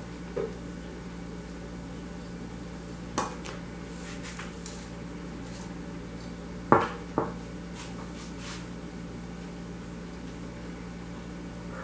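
A few light clacks of paintbrushes and small hard objects being picked up and set down on a granite worktop and glass bottle, the loudest a quick double clack about seven seconds in, over a steady low hum.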